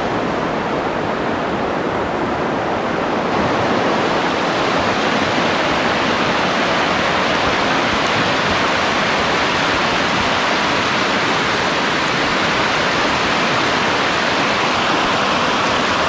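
Shallow river rushing over stones and small rapids: a steady, loud water noise, slightly brighter from about three seconds in.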